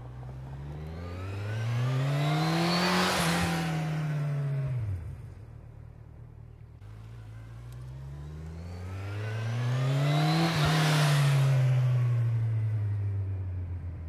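Kawasaki Ninja 1000's inline-four on its stock exhaust, ridden past twice: each time the engine note climbs as the bike accelerates, peaks loud as it goes by, then drops away.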